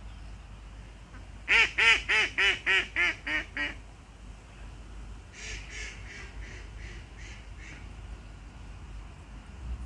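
Duck quacking: a loud run of about nine quacks that grow fainter one after another, then a second, fainter run of quacks about two seconds later.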